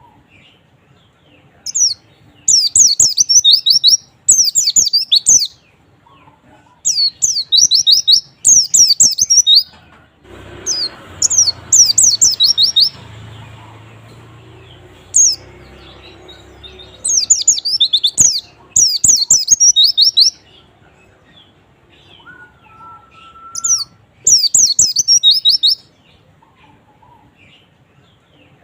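White-eye (pleci) song: fast, high chirping warbles in phrases of one to two seconds, repeated with short pauses. A faint stretch of noise with a low hum runs underneath from about a third of the way in to past the middle.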